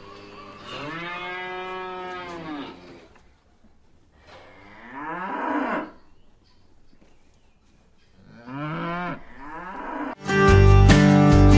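Cows mooing: three long moos a few seconds apart. Near the end, strummed acoustic guitar music cuts in abruptly, louder than the moos.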